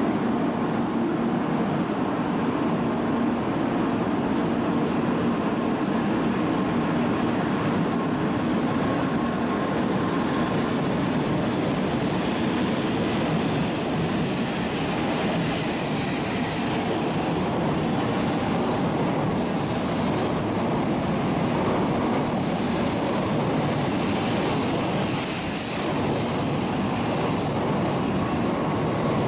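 N700 series Shinkansen train pulling out of the platform and gathering speed as its cars slide past, a steady rail running noise. About halfway through a rushing hiss rises over it as the cars go by faster.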